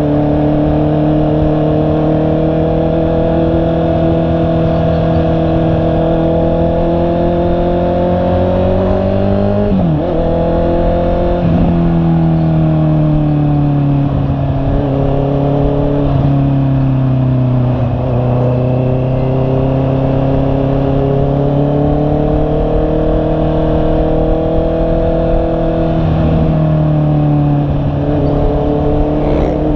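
2021 Honda CB650R's inline-four engine running under way, its note slowly rising and falling with speed. It breaks into quick dips in pitch a few times, around ten and twelve seconds in and again near the end, as gears are changed.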